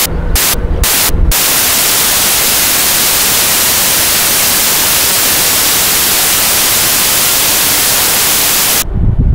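Loud, even static hiss like white noise, cutting in and out in four short bursts over the first second or so, then running unbroken until it stops abruptly near the end: an electronic fault on the audio track.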